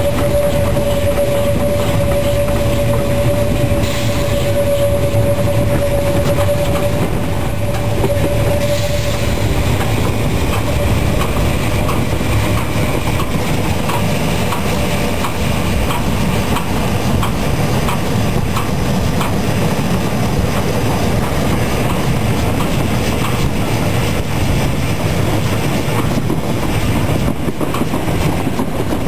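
Narrow-gauge train on the move behind steam locomotive 99 6101: a steady rumble of running gear on the rails, with light regular clicking through the middle. A held high squealing tone over the first several seconds fades out.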